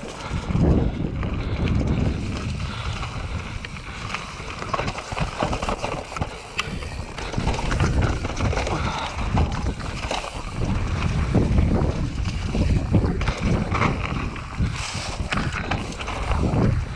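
Wind buffeting a GoPro's microphone while a Cube Stereo 150 full-suspension mountain bike descends at speed, its tyres rolling and crunching over leaf litter, dirt and rocks, with irregular clicks and rattles from the bike over the rough ground.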